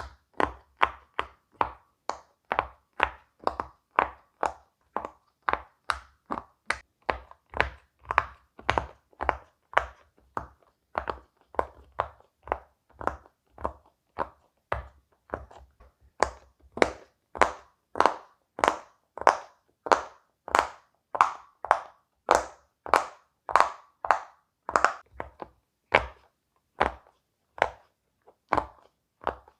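Silicone pop-it fidget toy bubbles being pressed one after another, each giving a short pop, at a steady pace of about two a second.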